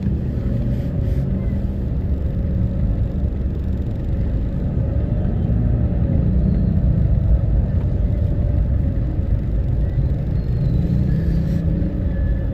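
Dense stop-and-go street traffic of motorcycles and cars: a steady low engine rumble heard from inside a car, with a faint engine pitch rising and falling about halfway through.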